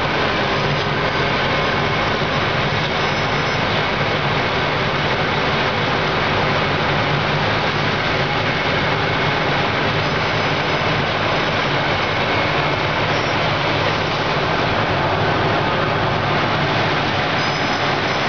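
Wirtgen W2200 cold planer running under load, its diesel engine and cutting drum milling the road surface in a heavy cut: a loud, steady machine din.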